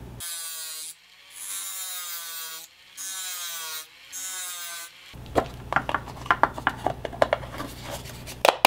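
Small pen-style rotary tool running in four short bursts, its whine wavering as the bit grinds a notch into the plastic lamp cover. Then a rapid run of plastic clicks and scrapes as the lamp parts are handled.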